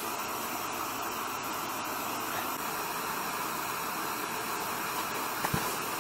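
Steady hiss of a gas burner flame, with two small knocks about five and a half seconds in.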